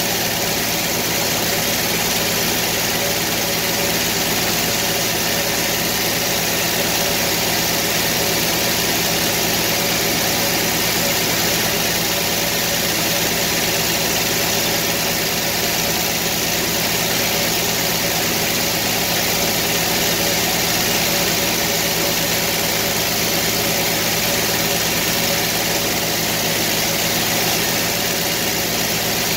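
A circular sawmill's power engine running steadily at idle, with no cut being made.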